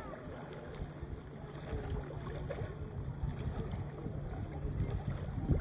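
Wind rumbling on the microphone, with faint small splashes of water stirred by a hand in a plastic tub.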